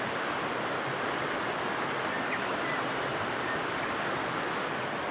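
Creek water running steadily over a shallow, rocky streambed, a constant rushing hiss.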